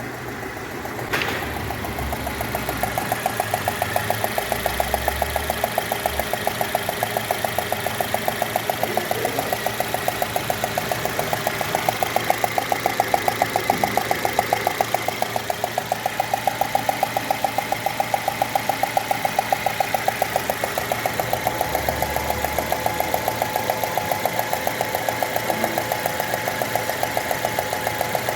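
Citroën C3 1.5 four-cylinder engine running at idle with a fast, even ticking knock. The mechanic traced the noise to loose, untorqued spark plugs letting compression escape. A sharp click about a second in is followed by the engine sound getting louder.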